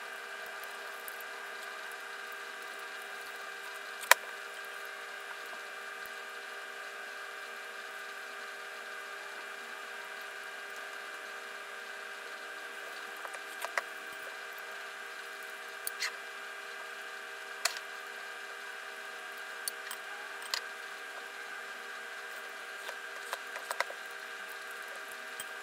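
Close-up eating sounds of oden: wet chewing and squishing of fish cake, with scattered sharp clicks of wooden chopsticks against the glass bowl, the loudest about four seconds in, more of them in the second half. A steady electrical hum lies underneath.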